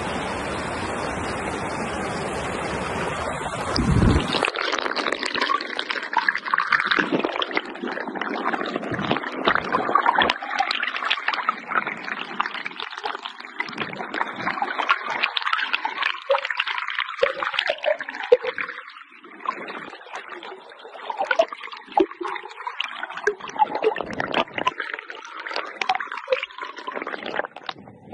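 Fast-flowing stream running over rocks, a steady rush of water at first. About four seconds in the microphone goes under the surface and the sound turns to muffled underwater gurgling and bubbling with many small clicks and pops.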